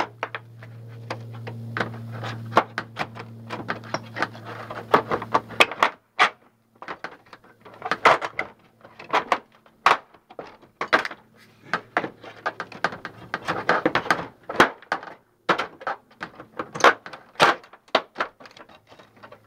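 Steel flat pry bar knocking, scraping and prying against aluminum gutter and sheet-metal drip edge to work old nails loose: a run of irregular sharp metallic clicks and knocks. A low steady hum sits under the first few seconds.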